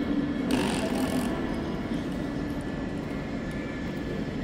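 Railway station platform ambience: a steady low rumble, with a short burst of hiss about half a second in.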